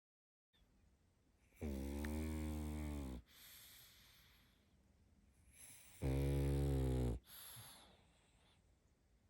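Small pug snoring in its sleep: two loud, buzzing snores, the first about a second and a half long and the second about a second, each followed by a softer breath out.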